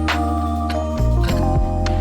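Background music: gentle keyboard music with held bass notes and soft chiming notes that change about every half second.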